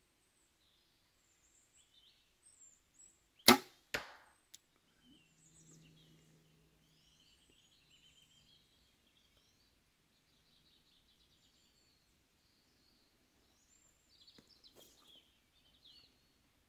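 A compound bow shot about three and a half seconds in: a sharp snap as the string is released, then a second, quieter knock about half a second later and a faint tick. Small birds chirp faintly throughout.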